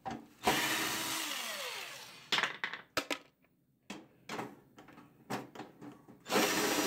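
A cordless drill/driver runs to back out screws from a microwave oven's metal casing: one run starting about half a second in and lasting about two seconds, and another near the end, its motor pitch falling as it winds down. Sharp clicks and taps of metal come in between.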